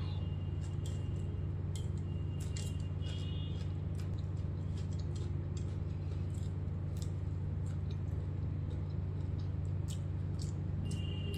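A steady low electrical hum under scattered small clicks and crunches: rice picked by hand from a steel plate and chewed.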